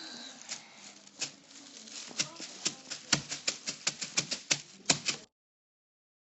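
A run of sharp taps or clicks, irregular at first and then quicker and denser, about three to four a second; it cuts off suddenly about five seconds in.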